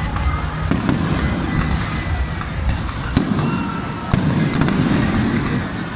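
Fireworks display: a rapid, continuous string of bangs and crackling pops as shells launch and burst, over a steady low rumble.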